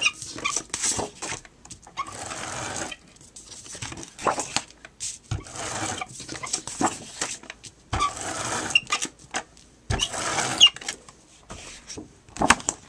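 A Scotch ATG adhesive tape gun run along the edges of cardstock in a series of short whirring strokes, each about a second long, with clicks and paper rustle between them.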